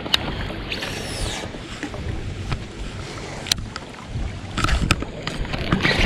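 Wind buffeting the microphone over open water. About a second in, a baitcasting reel's spool whirs briefly during a cast, and a few sharp clicks follow later.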